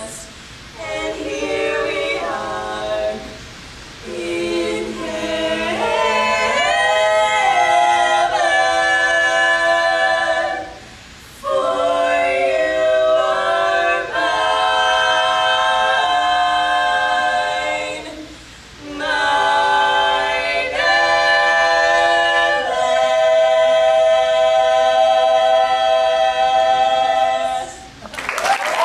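Female vocal quartet singing a cappella in close harmony, holding long sustained chords in phrases separated by brief pauses.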